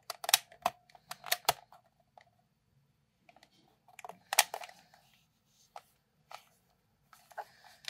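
Fuji DL-95 compact film camera's panorama switch being slid back and forth with the thumb: sharp plastic clicks, a cluster in the first second and a half and another about four seconds in, then a few lighter handling clicks near the end.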